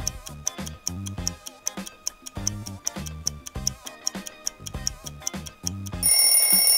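Quiz countdown timer: fast clock-like ticking over light background music with a bass line. About six seconds in, a bright alarm-like ring sounds as the time runs out.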